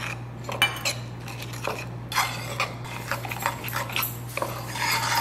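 A metal spoon stirring powdered peanut butter and water into a wet paste in a ceramic bowl, with irregular scrapes and clinks of the spoon against the bowl. A low steady hum runs underneath.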